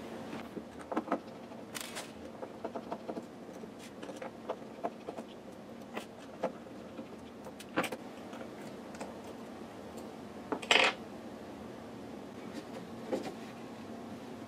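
Scattered light plastic clicks and knocks from an HP Photosmart printhead assembly being handled and its parts unclipped, with one sharper click about ten seconds in. A faint steady hum lies underneath.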